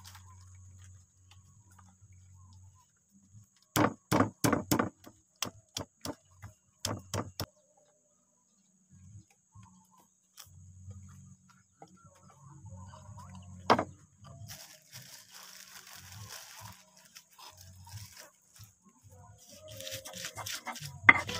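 Stone mortar and pestle (cobek and ulekan) being loaded and worked. A quick cluster of sharp stone-on-stone knocks comes about four seconds in, then a few single knocks. Midway there is a soft scraping rustle as chopped chilies, shallots and garlic are tipped in from a plate, and quicker grinding knocks start near the end.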